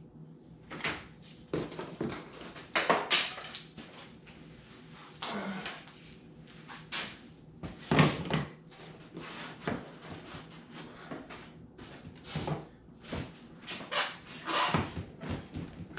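Irregular clicks, knocks and rustles of hands-on work with small clamps and tools on the foam boat sides, a sharper knock about eight seconds in.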